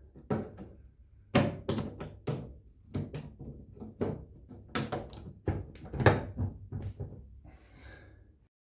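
Plastic drain pump filter access cover on a Samsung front-loading washing machine being fitted and pushed shut: a series of sharp plastic knocks and clicks, about a dozen over several seconds.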